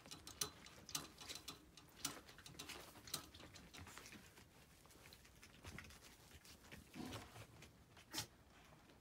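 Near silence with faint, scattered clicks and taps, the sharpest one near the end.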